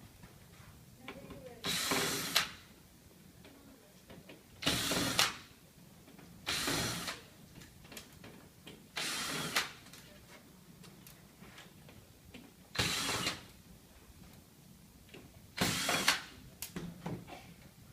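Power screwdriver running in six short bursts, each under a second, a few seconds apart, as screws are driven or backed out during a power supply replacement.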